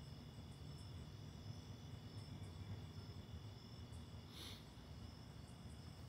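Crickets trilling steadily in several high, even tones, with a low steady rumble underneath. A brief louder burst of sound comes about four and a half seconds in.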